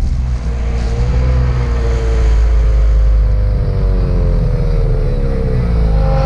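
2017 Ski-Doo Summit 850 E-TEC snowmobile's two-stroke twin engine running at low revs, its pitch sinking slowly over the last few seconds.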